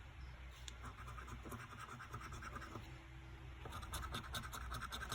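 Scratchcard panels being scratched off, a run of quick, irregular scraping strokes.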